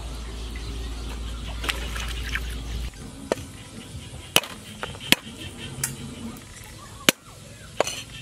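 Steel cleaver chopping garlic on a wooden chopping board: six sharp, separate knocks at an uneven pace, starting about three seconds in. Before them there is a steady low rumble.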